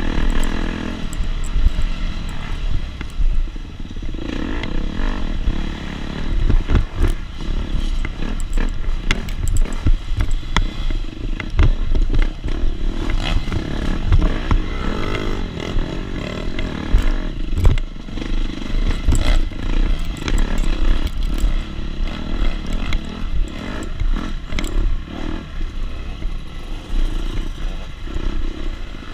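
Two-stroke 250 SX dirt bike engine under race load, its sound rising and falling with the throttle, with frequent sharp clattering knocks as the bike goes over rough ground.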